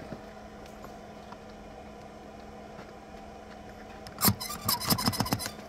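A steady low hum under a constant hiss. About four seconds in it is broken by a quick cluster of sharp knocks and clatters lasting just over a second.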